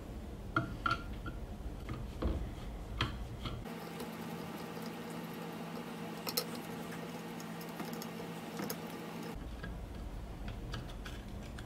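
Scattered light clicks and ticks of a Phillips screwdriver working loose the screws that hold the clear plastic blade cover on an automatic saw chain sharpener's grinding head.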